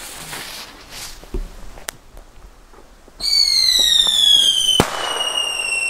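Firework fuse hissing as it burns, then about three seconds in a loud whistle that slowly falls in pitch, with a sharp bang partway through while the whistle carries on a moment longer.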